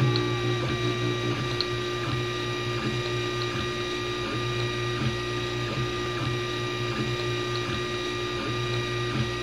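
A 3D printer's stepper motors whine in short swoops of pitch as the print head lays down its first layer, over a steady hum.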